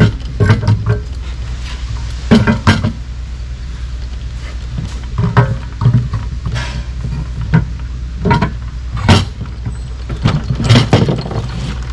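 Irregular knocks and clinks of a Suzuki Samurai aluminium transfer case bumping against its steel cradle as it is worked down into place, over a steady low hum.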